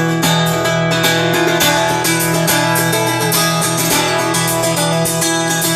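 Medieval folk-rock band playing live at a soundcheck, with strummed guitar prominent over steady held low tones.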